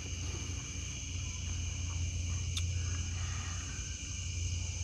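A steady chorus of night insects such as crickets, an unbroken high-pitched trilling, over a steady low hum, with a single faint click about two and a half seconds in.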